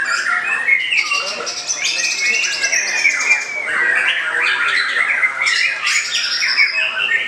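Caged white-rumped shama singing a loud, fast, varied song of trills, chips and whistled glides, with no pause. Other birds sing over it at the same time.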